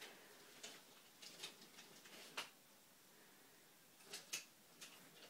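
Scattered faint clicks and light knocks of wooden toy train track and trains being handled. The sharpest is about two and a half seconds in, and a pair comes close together just after four seconds.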